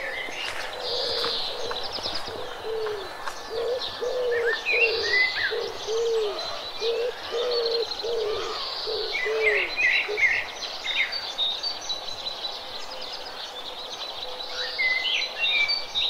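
A dove cooing in a run of short, evenly spaced notes, about two a second, that stops about two-thirds of the way in. Small birds chirp higher up throughout.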